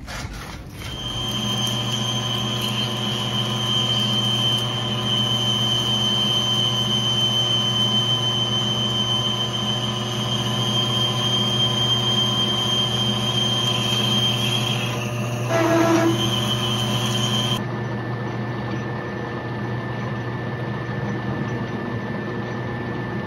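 Metal lathe running with a steady motor hum while a cutting tool turns an aluminium bar, giving a steady high whine. About 15 seconds in the whine breaks up with a brief louder moment, then stops near 18 seconds in while the lathe keeps humming.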